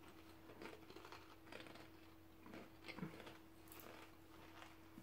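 Faint crunching of potato chips being chewed, in irregular crackles with one louder crunch about three seconds in, over a low steady hum.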